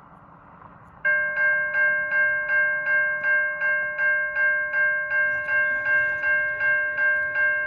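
Railroad grade-crossing warning bell that starts about a second in and rings steadily at about two and a half strokes a second, each stroke ringing on into the next. It signals that the crossing has activated for an approaching train.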